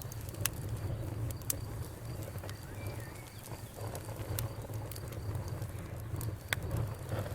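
Outdoor wood fire crackling, with irregular sharp pops over a low steady rumble. A cricket trills faintly and steadily, and a bird gives a short chirp about three seconds in.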